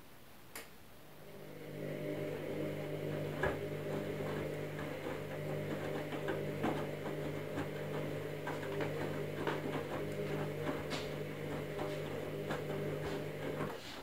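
Candy Smart Touch front-loading washing machine tumbling its drum in the wash: the drum motor starts about a second in, hums steadily, and stops just before the end. Water sloshes in the drum with many irregular clicks as it turns, and a single click comes just before the motor starts.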